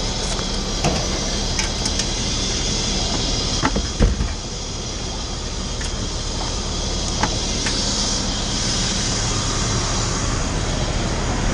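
Fire engine's engine running steadily, with a few sharp knocks and clanks of equipment being handled; the loudest thump comes about four seconds in.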